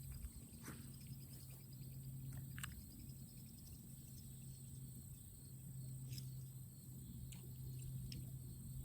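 Faint outdoor ambience: a steady high insect drone and a faint steady low hum, with a few scattered soft clicks.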